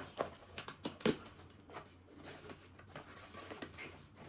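A small cardboard parcel being opened by hand: the packing tape is scraped and pulled loose with several sharp crackles in the first second and a half, the loudest about a second in, then softer rustling of the cardboard flaps.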